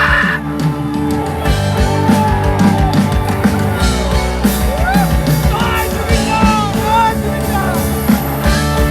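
Loud band music played through a Das Audio and RCF HDL 20 line-array PA system during a sound check, with a heavy steady bass and drum beat under a melody of sliding, bending notes in the middle.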